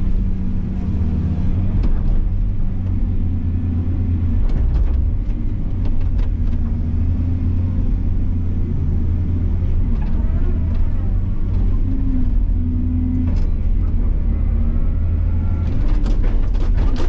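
Heavy construction machine's engine running with a steady low rumble, with scattered sharp knocks and a quick cluster of them near the end.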